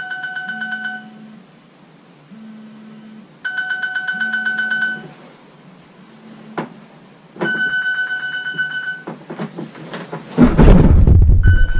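Electronic wake-up alarm sounding in repeated bursts of rapid high beeps, with a lower tone pulsing under the first bursts. About ten seconds in, loud rustling and bumping close by as the sleeper gets out of bed, then the alarm beeps again.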